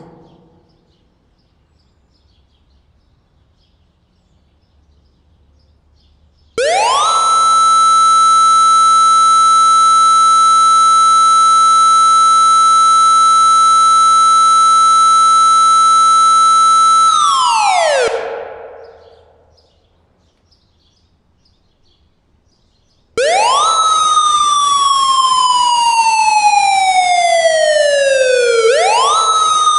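Outdoor warning siren being tested. About six seconds in it winds up quickly to a steady high tone, holds it for about ten seconds, then winds down. After a pause of a few seconds it comes back as a wail that slides slowly down in pitch and sweeps back up near the end.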